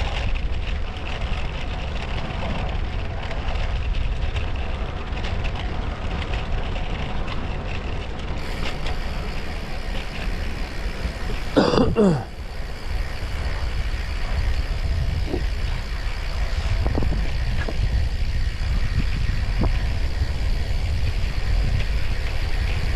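Steady low wind rumble on an action camera's microphone while riding. About halfway through comes one brief, loud sound that falls sharply in pitch.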